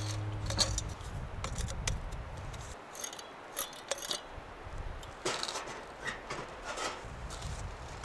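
Footsteps crunching in snow, one sharp crunch roughly every half second, under the last of a guitar tune that fades out in the first second.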